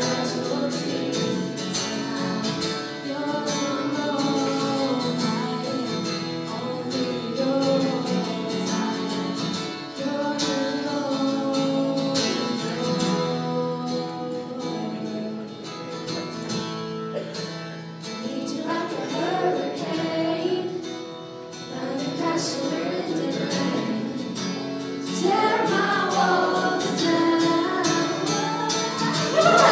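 A woman singing a Christian song into a microphone over instrumental accompaniment, growing louder in the last few seconds.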